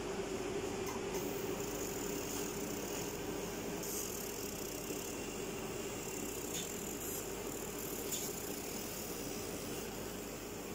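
UV laser marking machine running with a steady fan hum and hiss over a low steady tone.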